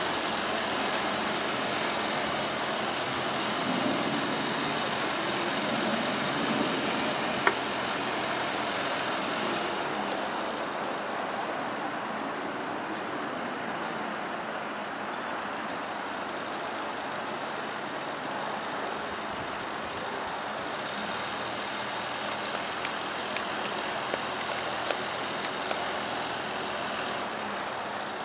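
A narrowboat's engine running steadily as the boat cruises, under an even hiss. Small birds chirp from the canal bank during the middle and again near the end, and there is one sharp click about a third of the way in.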